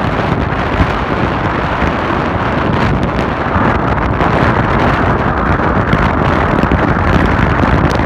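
Steady, strong wind buffeting the phone's microphone on the open deck of a moving ferry, with a low rumble under it.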